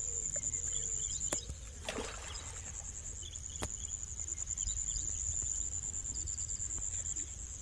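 A steady, high-pitched insect trill that pulses quickly, with two sharp clicks about two seconds apart.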